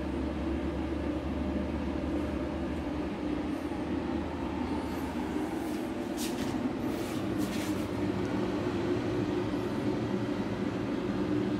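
Steady hum and fan whir of a 5 kVA WEM 5000 solar inverter/UPS running, its cooling fans and transformer humming. A few brief rustling noises come in about six to seven and a half seconds in.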